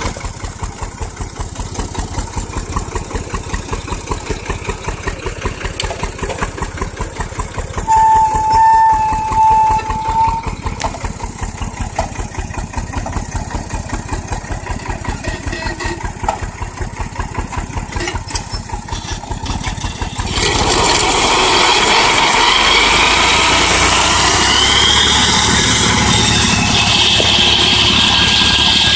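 IMT 549 DV tractor's diesel engine running with a regular pulsing beat while a Vicon CM 165 rotary disc mower cuts grass. A steady high tone sounds for about two seconds some eight seconds in, and from about twenty seconds on the sound turns louder with a strong hiss.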